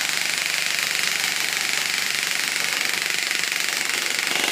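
Magpul Full Metal MOE CQB airsoft electric gun (AEG) with a G&P metal gearbox firing one long, sustained full-auto burst on an 11.1 V LiPo battery: a fast, even mechanical rattle of the gearbox cycling shot after shot.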